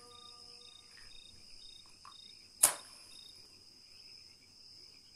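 A match struck once on a matchbox to light a cigarette: a single sharp scrape and flare about two and a half seconds in, dying away within a fraction of a second. Under it, a steady high-pitched chirping pulses about twice a second.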